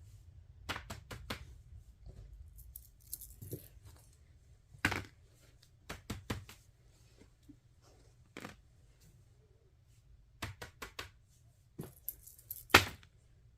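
Small plastic fidget toys being handled and clicked: scattered sharp clicks and taps, several in quick runs of three or four, with two brief crinkly rustles, about three seconds in and again near the end.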